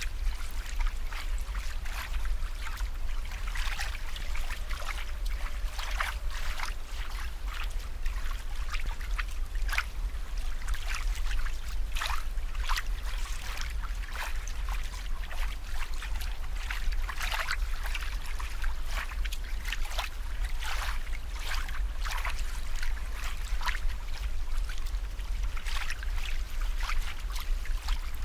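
Aquarium water bubbling and trickling in a dense, irregular patter, over a steady low hum.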